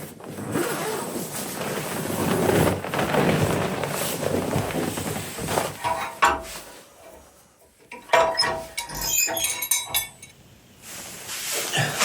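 Rustling and handling noise, then metal cookware clinking and ringing several times, about six seconds in and again around eight to ten seconds in.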